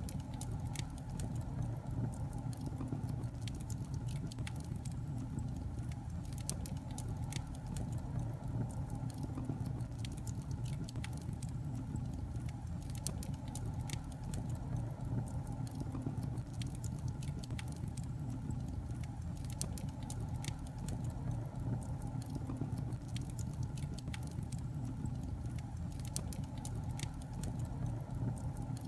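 Fire burning in a fireplace, a steady low rumble with many sharp, irregular crackles and pops.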